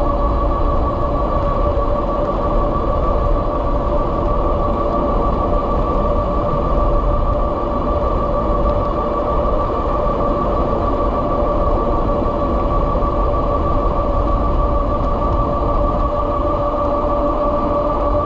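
Kepler e-bike's electric motor whining steadily at around 30 mph, with heavy wind rumble on the microphone.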